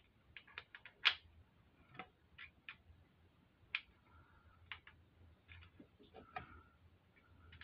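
Faint, irregular small metallic clicks and taps from hands working tappets and magnet pieces into the cam area of a motorcycle V-twin engine, a dozen or so in all, the loudest about a second in.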